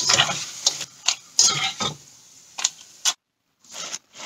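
Wire-mesh strainer and metal spatula clinking against a wok while yucca slices sizzle in hot oil, as the fried chips are scooped out. There are several sharp clinks, roughly one every half second, and the sound cuts off suddenly about three seconds in.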